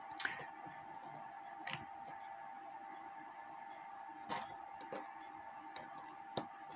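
Antique 1880s Albert Flieg cuckoo clock movement being turned by hand: about five faint, scattered metallic clicks from its wheels and levers, over a steady faint high whine.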